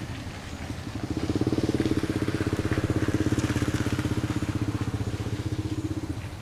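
A small engine running at a steady, rapid beat, growing louder about a second in and easing off near the end.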